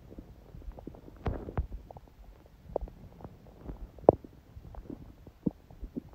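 A person's stomach gurgling softly, with scattered short pops and bubbling gurgles. The loudest come about a second in and again about four seconds in.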